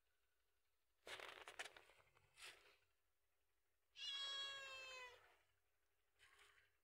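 A cat meows once, about four seconds in: one long, clear call of about a second whose pitch sinks slightly at the end. Before it, starting about a second in, there is a second and a half of scuffly noise.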